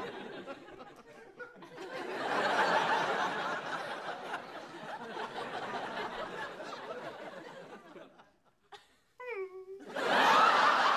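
Studio audience laughing in two waves. A long laugh swells about two seconds in and fades away around eight seconds in, and after a brief lull a second, louder burst of laughter breaks out near the end.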